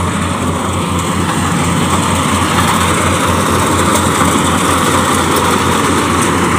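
Rice combine harvester running close by as it cuts standing rice: a steady, loud drone of engine and threshing machinery that grows slightly louder as it passes.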